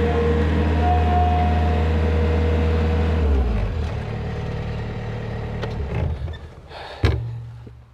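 Skid steer engine running steadily under throttle, then dropping in pitch and level about three seconds in as it is throttled back. It dies away, with one sharp knock near the end.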